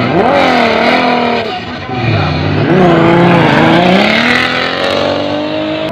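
Offroad rally truck's engine revving hard as it drives along the dirt track. The pitch falls and rises with throttle lifts and gear changes, dips about two seconds in, then climbs steadily near the end.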